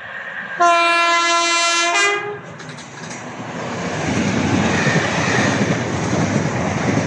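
A train horn sounds one loud, steady blast of about a second and a half, stepping briefly to a higher note as it ends. Then the rumble of a train grows louder as it approaches the platform.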